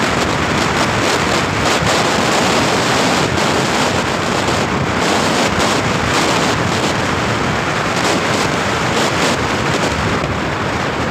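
Steady, loud wind rush buffeting the microphone from inside a moving vehicle, blended with road noise.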